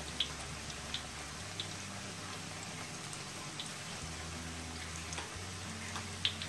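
Corn and shrimp fritters frying in hot oil in a wok: a steady sizzling hiss with a few sharp ticks scattered through it.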